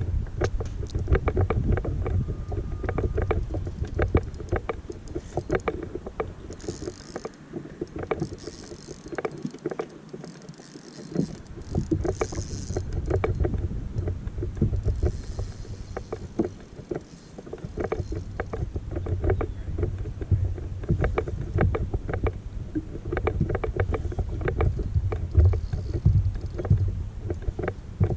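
Wind buffeting the microphone on an open boat, with many small knocks and water slaps against the hull; the wind drops off briefly partway through.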